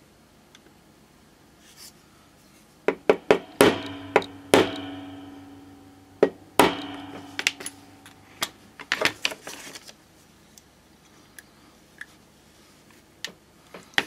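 Small hammer tapping a pin punch to drive the hinge pins out of a sterling silver petrol lighter: a run of sharp metal taps, the hardest leaving a brief ringing tone.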